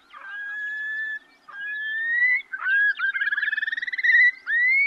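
Long-billed curlews calling back and forth: a series of clear, rising whistled calls, with a fast rippling trill midway through.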